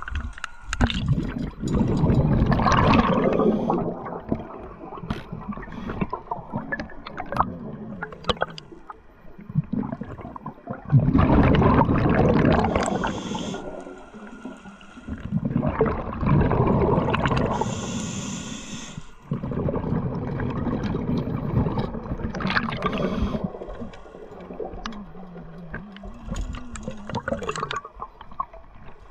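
Scuba diver breathing through a regulator underwater: long gurgling bursts of exhaled bubbles every few seconds, with quieter inhales between, and scattered sharp clicks.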